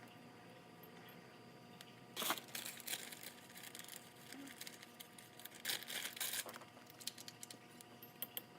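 Hands rustling and crinkling something while handling parts, in two short spells of sharp, scratchy noise, about two seconds in and again about six seconds in.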